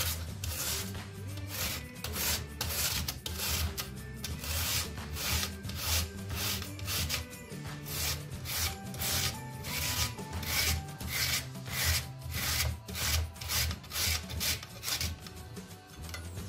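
Carrots being grated on a hand grater: a steady run of rasping strokes, about two a second, with soft background music underneath.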